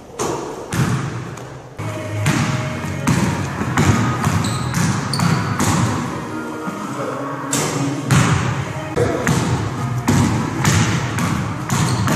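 Basketball being dribbled on a gym floor: repeated bounces at an uneven pace, about one to two a second.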